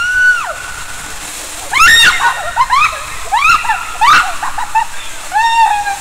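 Water rushing and splashing through an enclosed water slide tube during a ride, with about five short, high-pitched squeals rising and falling over it.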